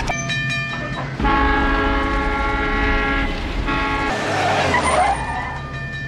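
A loud horn with several tones sounding together blares over a low engine rumble: a short blast, then a longer one from about a second in that lasts roughly three seconds, followed by a rushing noise.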